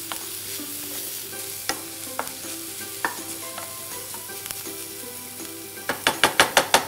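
Chopped vegetables and pine nuts sizzling in a frying pan while being stirred with a wooden spatula, with scattered knocks of the spatula on the pan. Near the end comes a quick run of about eight sharp taps.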